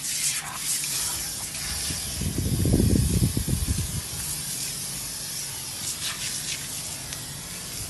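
Aerosol snow-spray can hissing in a long continuous jet as foam is sprayed over a person's head and back. A low rumble, the loudest part, comes about two to three seconds in.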